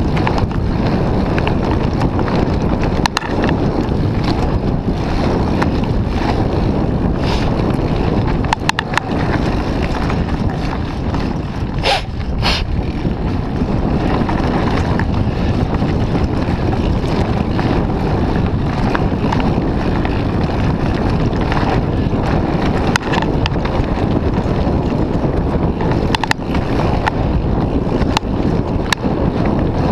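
Wind buffeting the camera microphone on a fast Mooto-X RSL mountain bike descent, with a steady rumble of tyres over dirt and leaves. Now and then the bike rattles and knocks over rough ground, most plainly about 3 s, 9 s and 12 s in.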